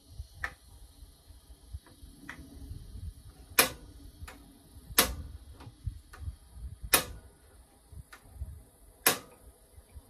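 RV gas range burner igniter clicking, about half a dozen sharp clicks a second and a half to two seconds apart, the later ones loudest. The burner is being held on while air is purged from the propane lines, so it has not yet caught.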